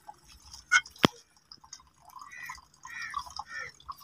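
A spoon clinks sharply once against a metal bowl with a short ring. It is followed by a series of drips and plops as thin milky vermicelli (sewaiyan) pours off the spoon back into the bowl, stirred and ladled to cool it.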